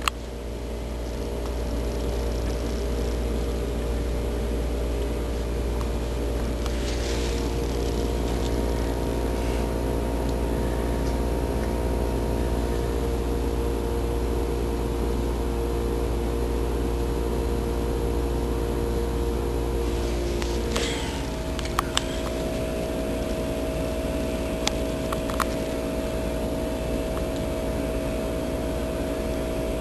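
Steady machine hum with a low rumble and several steady tones. The tones shift slightly a little over two-thirds of the way through, and a few light clicks follow.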